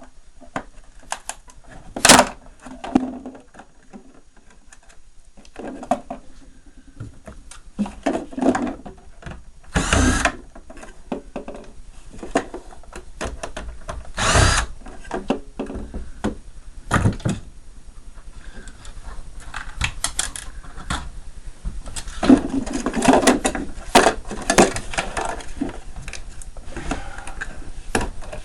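Power drill-driver running in short bursts, twice strongly about a third and half of the way through, taking out screws, amid scattered clicks, knocks and clatter of parts being handled.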